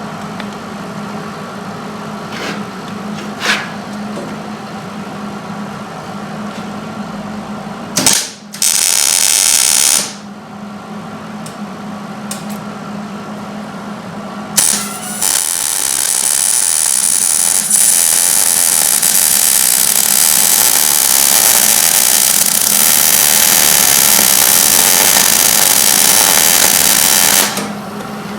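Welder arc welding a nut onto a broken exhaust manifold stud in an aluminium cylinder head: a short burst of welding about a third of the way in, then a steady run of about twelve seconds from about halfway, stopping shortly before the end. A low steady hum and a couple of clicks come before the welding.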